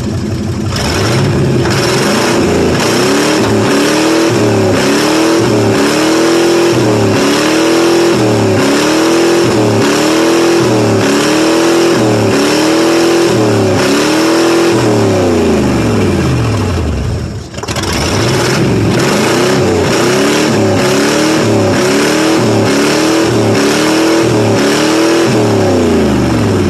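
1995 Ford 5.8-litre V8 being revved over and over, about once a second, each rev climbing and falling back. The revving breaks off for a moment about two-thirds of the way through, then starts again.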